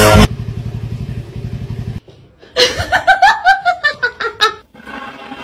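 Loud music cuts off just after the start. A couple of seconds later a person laughs in a quick run of 'ha' bursts that fall in pitch, lasting about two seconds.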